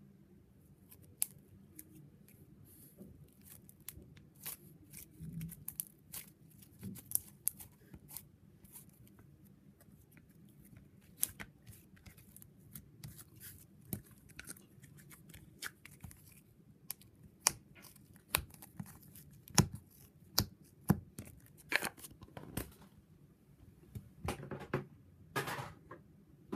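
Slime being squished and pulled by hand, giving irregular sharp clicks and pops, busier and louder in the second half.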